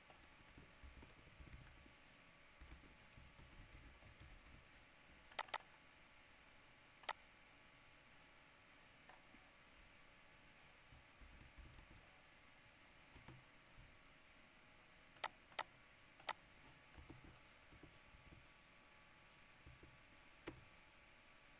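Sparse clicks of a computer mouse and keyboard over faint room hiss: about eight sharp single clicks, with a quick pair about five seconds in and a cluster of three around fifteen seconds.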